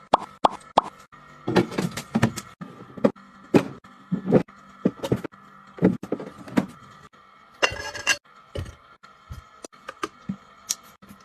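Small objects being handled and set down: a quick even run of light taps, then irregular knocks and clinks, with a short rustle or scrape a little after halfway.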